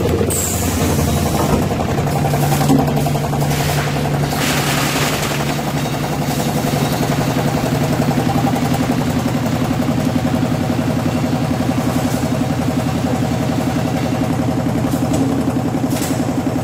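Vacuum brick-bag packing machine running: a steady mechanical drone with a fast even pulse beneath it, and a brief hiss about four seconds in.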